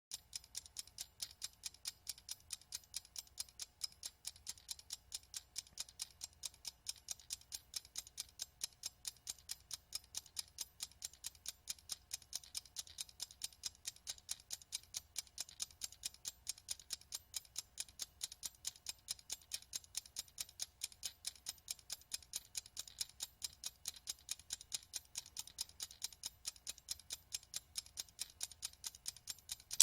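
Mechanical wind-up kitchen timer ticking steadily as it counts down, a few quick, even ticks a second.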